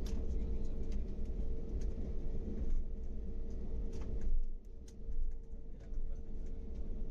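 Airliner cabin noise while the plane taxis: a steady low rumble with a constant hum and scattered light clicks. The rumble dips briefly a little past the middle.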